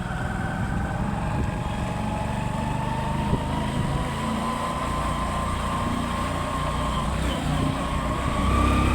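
Motorcycle engine running on the move, with a steady rumble and a whine that rises slowly in pitch as it picks up speed. The engine grows louder near the end.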